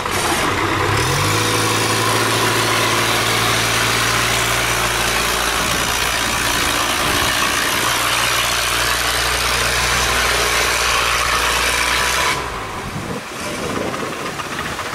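Long-tail boat engine running hard to push a wooden boat upstream through a sluice gate against a strong current, over loud rushing, churning water. The engine note rises about a second in and holds, then the engine and water noise drop away sharply near the end.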